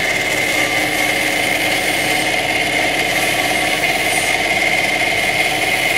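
Horizontal metal-cutting bandsaw running steadily as its blade cuts through aluminium plate clamped in the vise, with a constant high whine.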